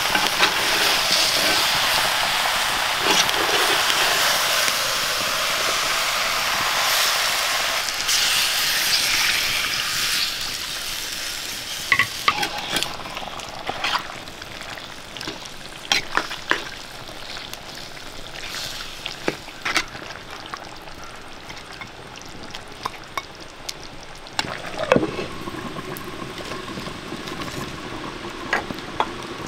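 Food sizzling in hot oil in a pan and being stirred, with a spoon knocking against the pan. The loud sizzle dies down after about ten seconds, leaving a quieter sizzle and scattered knocks of the spoon.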